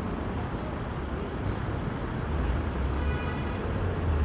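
City street traffic noise: a steady rumble of passing vehicles that swells louder in the second half.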